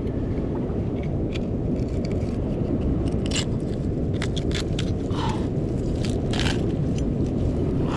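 Sea urchin shell being cracked open: short crunches and scrapes, mostly from about three seconds in, over a steady rush of wind and surf.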